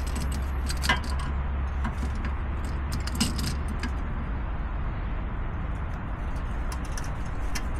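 Light metallic clinks and clicks of a screw clamp being worked against a disc-brake caliper to press the piston back, with sharper clicks about a second in and after about three seconds. A steady low hum runs underneath.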